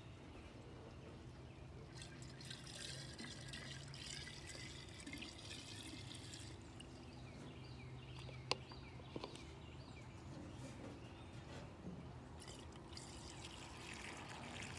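Fuel pouring from a metal can's spout through a plastic funnel into a chainsaw's fuel tank, a faint trickle that comes in two stretches. There is a single sharp click about halfway through.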